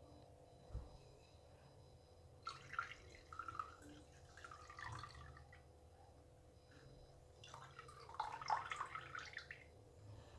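Herb leaves swished by hand in a bowl of water to rinse them: faint splashing and dripping in two spells, about two and a half seconds in and again near eight seconds, with a light knock near the start.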